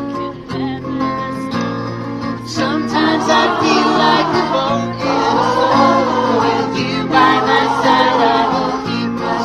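Acoustic guitars strumming a song. About two and a half seconds in, a choir comes in with a lead singer, and the singing swells louder from there.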